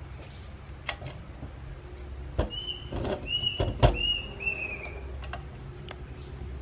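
Light knocks and taps of a small hinged door and its metal hinges being pressed and set into their opening by hand, the loudest knock about four seconds in. Around the middle, four short high chirps sound one after another.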